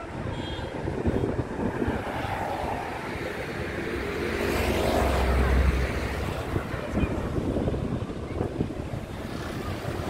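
Street traffic noise with a vehicle engine passing close by. It grows to its loudest about five seconds in, then fades.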